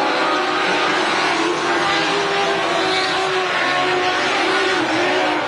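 A pack of small dirt-track race cars running at high revs together, one of them powered by a Honda CBR 600 motorcycle engine. Several engine notes overlap, each rising and falling as the cars lap the oval.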